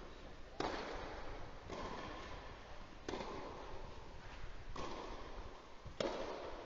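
Tennis ball being hit back and forth in a rally on a clay court: about five sharp hits, each followed by a ringing echo in the big hall.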